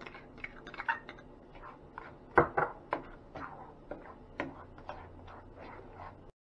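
A plastic spoon stirring thick tomato sauce in a stainless-steel skillet: irregular clicks and scrapes against the pan, with the loudest knock about two and a half seconds in.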